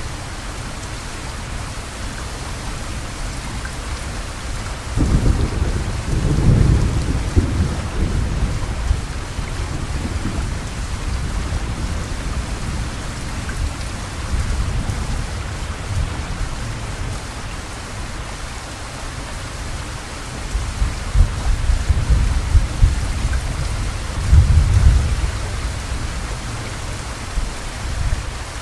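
Heavy rain falling steadily, with two low rolls of thunder: one starting suddenly about five seconds in and lasting a few seconds, another longer one past the middle.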